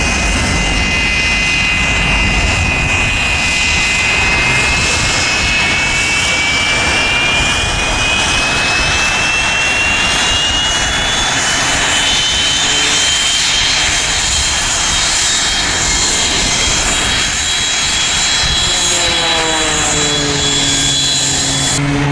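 Turbojet engines of vintage jet fighters taxiing at close range: a loud, steady high-pitched turbine whine that slowly rises in pitch. In the last few seconds a lower whine falls in pitch and levels off.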